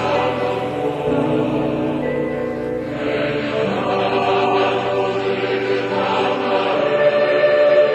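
Background music with held choir-like voices over sustained chords.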